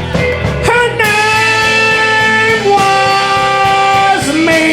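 Live band music between the sung lines of a comedy song: long held notes that step to a new pitch about every one and a half seconds, over a steady beat.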